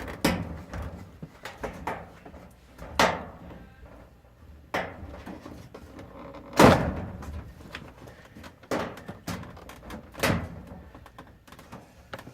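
Clunks and knocks from a Fisher & Paykel dryer's top cover as its retaining tabs are pushed loose and the panel is worked free: about six separate knocks, the loudest a little past halfway.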